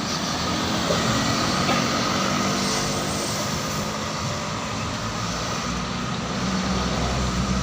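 Heavy road vehicle's engine running with a steady low drone, mixed with road and traffic noise.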